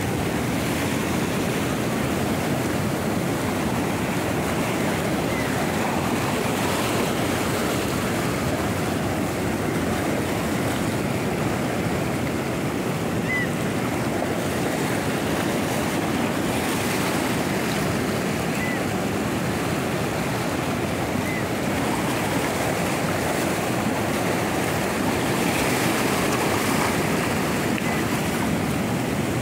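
Sea surf washing and breaking over shoreline rocks, a steady rush of water.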